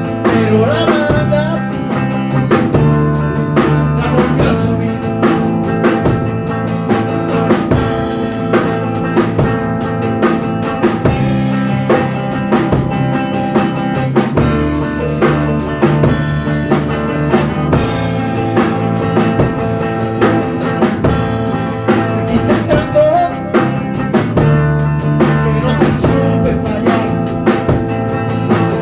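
Instrumental passage of a band song, with a drum kit keeping a steady beat of bass drum, snare and rimshots under pitched melodic instruments; no singing.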